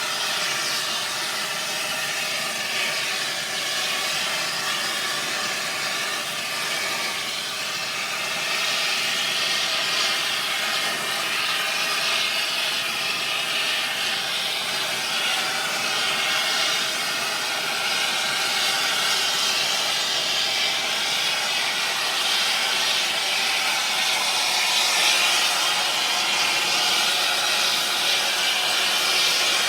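Air torch on metal: a continuous hissing rush with faint steady tones beneath it, growing slightly louder after about eight seconds.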